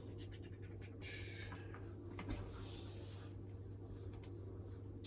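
Faint rustling and a few light clicks of hands rummaging through parts, over a steady low hum.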